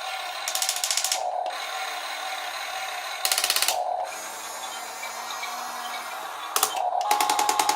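Top Race TR-218 RC drill excavator's small electric motors and gears whirring, broken three times by bursts of rapid ratcheting clicks. The last burst, near the end, is the longest and loudest.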